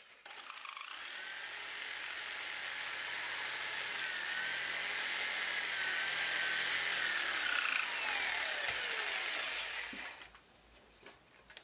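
Jigsaw running and cutting a small wooden blank, its motor whine wavering up and down in pitch as the blade works through the wood; it stops about ten seconds in.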